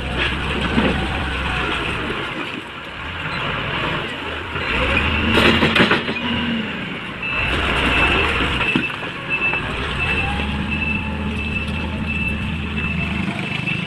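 Motor grader's diesel engine running under work, its low hum easing and picking up again several times, with a brief loud rush of noise about five and a half seconds in. In the second half a high-pitched beeper sounds about twice a second.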